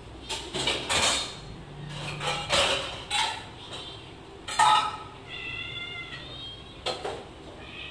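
A group of domestic cats meowing for food, with one clear drawn-out meow of about a second past the middle. Several short sharp knocks are mixed in, the loudest just before that meow.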